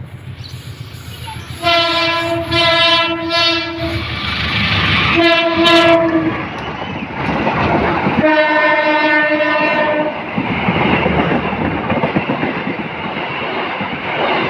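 Indonesian diesel locomotive's horn sounding three blasts: a long one of about two seconds, a short one, then another long one. Behind and after the blasts, the loud rumble and rattle of the train's wheels on the rails as it passes.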